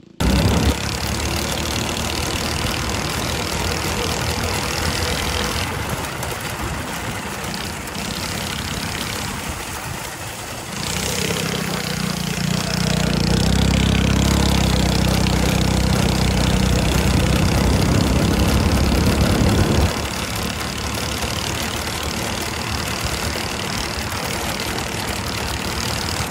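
Go-kart's Harbor Freight Predator 212 single-cylinder four-stroke engine running as the kart is driven, heard close from the seat, with a steady hiss of noise over it. It grows louder and deeper for several seconds in the middle, then eases back.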